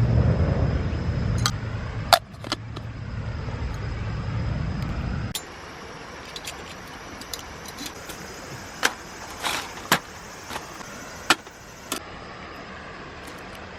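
A steady low rumble that cuts off abruptly about five seconds in, followed by scattered clicks, knocks and light rattling over a soft hiss.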